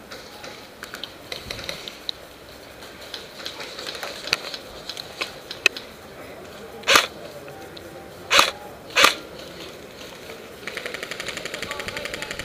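Scattered light clicks and knocks, then three short loud bursts of noise in the middle. Near the end comes a long, rapid full-auto burst from an airsoft electric gun, a fast even rattle of shots.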